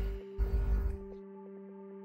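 Background ambient electronic music with steady sustained notes, and a low rumble in about the first second.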